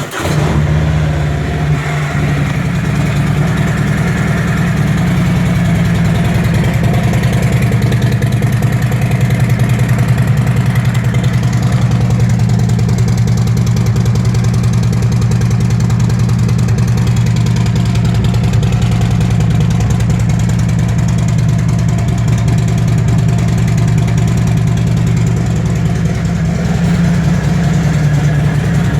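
Harley-Davidson Milwaukee-Eight V-twin idling steadily through Vance & Hines Power Duals head pipes with Twin Slash round mufflers, just after being started. It is a loud, even, deep exhaust note.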